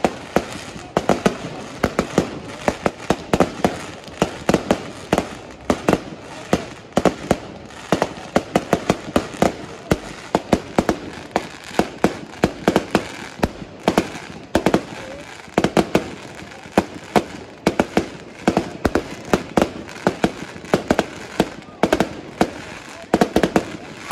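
Fireworks going off in quick succession: a continuous string of sharp bangs and crackles, several a second, as small shells and rising stars burst in the air.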